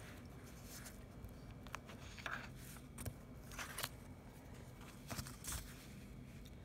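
Faint handling noise: soft rustles and several small clicks as an open book is held and a plastic reading ruler is laid across the page.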